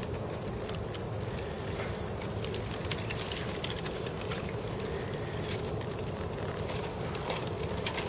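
Thin plate ice drifting on harbor water, crackling and clinking with many quick irregular ticks as the pieces break up and rub against each other and the dock, over a steady low rumble.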